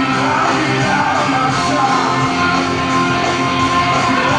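Rock band playing live on stage, with electric guitars, drums and singing, and a long held note through the middle. It is heard through a phone camera's recording of the concert.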